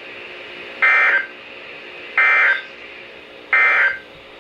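Three short bursts of the weather-radio data signal (SAME / EAS digital tones), each about half a second long and about 1.4 s apart. This is the end-of-message code that closes the National Weather Service warning broadcast.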